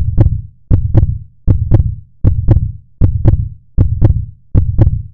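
Heartbeat sound: a steady double "lub-dub" thump, each beat a low thud with two sharp clicks, repeating about every three-quarters of a second (roughly 80 beats a minute).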